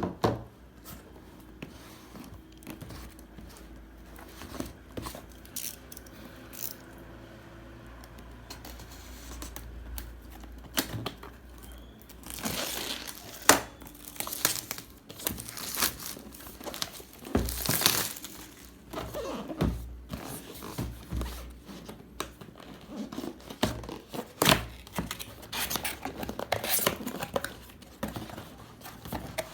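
Unboxing sounds: packaging being opened and handled, with plastic wrap crinkling and tearing amid irregular knocks and scrapes, sparse at first and busier and louder from about halfway through.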